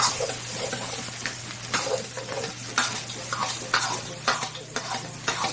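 A metal ladle stirs and scrapes fried rice around a hot frying pan, with a scrape about once a second over a steady sizzle of the rice frying.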